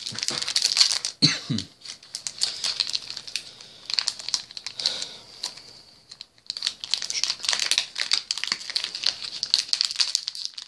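A trading-card booster-pack wrapper being torn open and crinkled, a rapid rustling crackle with a short lull a little past halfway.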